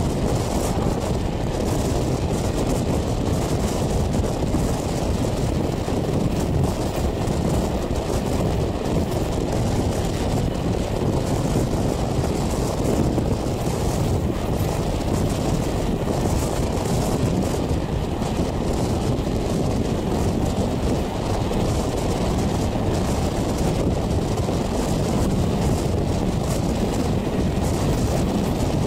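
Steady rush of wind and running noise of a moving passenger train, heard from an open carriage window, with wind buffeting the microphone.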